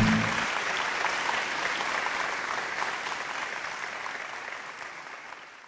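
Audience applause that fades away steadily to nothing. The music's last low notes stop about half a second in.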